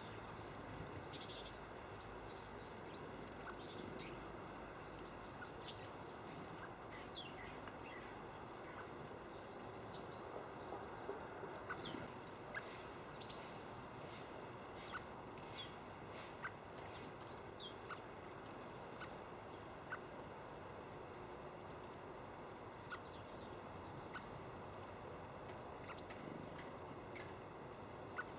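Small songbirds calling: many short, high chirps that slide downward, scattered irregularly over a steady faint hiss.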